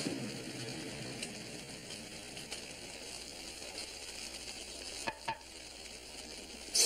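A low, steady hiss with two short clicks about five seconds in, and a sharper, louder noise right at the very end.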